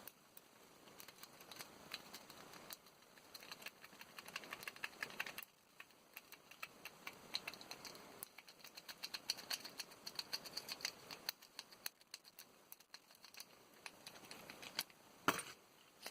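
Lock pick and tension wrench working the pins of a Master Lock 570 padlock: rapid small metallic clicks and scrapes in busy runs, like raking, with one sharp, louder click near the end.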